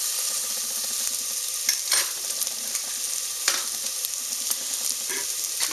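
Minced garlic sizzling steadily in hot oil in the pot of a Mondial Pratic Cook electric pressure cooker, with a spoon scraping across the pot a few times as it is stirred.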